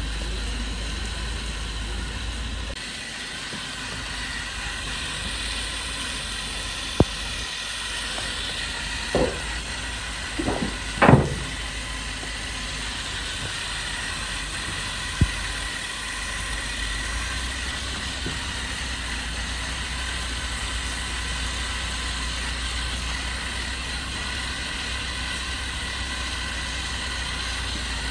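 Solar panel cleaning robot working on rain-wet panels: a steady mechanical hiss and whir from its drive and roller brushes, with a low rumble. A few short knocks and squeaks fall between about seven and eleven seconds in, and one more comes around fifteen seconds.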